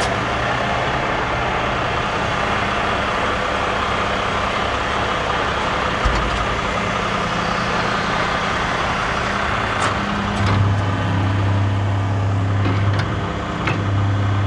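Diesel truck engine running with the PTO-driven hydraulic pump engaged while the dump body of a 5-ton food-waste truck is lowered on its hydraulic cylinder. A louder, deeper hum sets in about ten seconds in.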